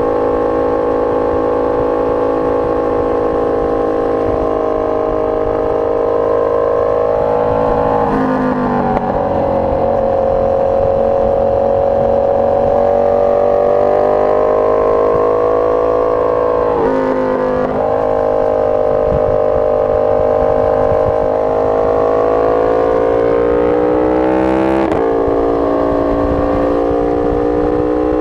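Motorcycle engine running hard at speed, its note rising and falling through corners, with sharp changes in pitch about 8, 17 and 25 seconds in, heard from a camera on the rear of the bike.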